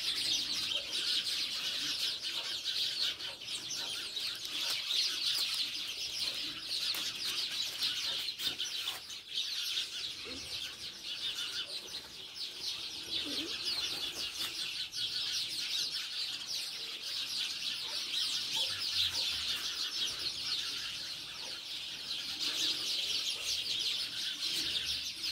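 Continuous dense high-pitched chirping from many small creatures, never pausing, with faint lower calls now and then.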